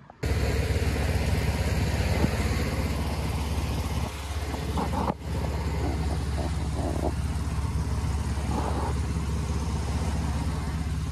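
Engine-driven air compressor running steadily while a pneumatic piercing tool, the 'missile', bores under a concrete driveway. The sound starts abruptly and briefly drops out about five seconds in.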